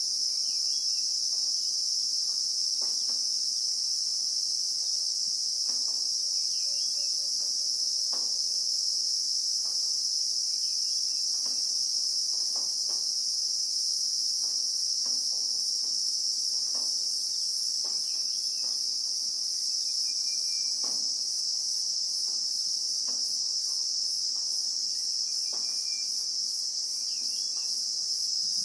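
A chorus of cicadas, the insects called Christmas beetles in South Africa, singing as one continuous high-pitched drone that does not let up. In the second half a faint fast pulsing runs through the top of the sound.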